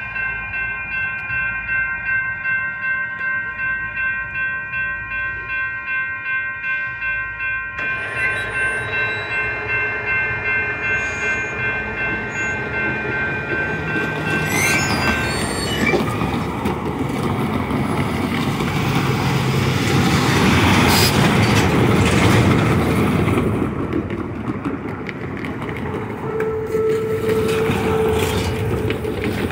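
Railroad grade-crossing warning bells ringing in a steady, rapid pulsing beat; some stop about a quarter of the way through and the rest about halfway, as the crossing clears. A louder rumble then swells and fades.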